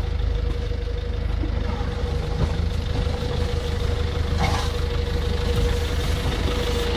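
An off-road 4x4's engine idling, a steady low drone with a constant tone over it.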